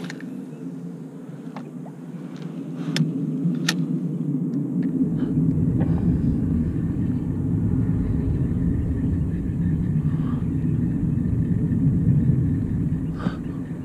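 Spinning reel being cranked to retrieve the line, a steady low whirring rumble that builds over the first few seconds and eases off near the end, with a few sharp clicks early on.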